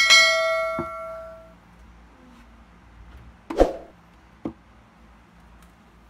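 A bright bell-like chime rings out and fades over about a second and a half: the notification-bell sound effect of a subscribe-button animation. About three and a half seconds in comes a sharp knock, then a lighter one a second later, as the painted wooden shelf is set down against the wall.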